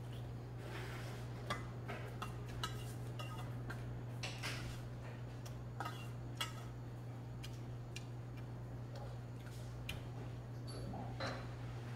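Metal chopsticks clicking and tapping irregularly against a stainless-steel bowl while eating and stirring, over a steady low hum.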